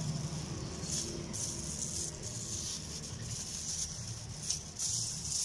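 Thin plastic bag rustling and crinkling in short spells as it is handled, over a low steady background hum.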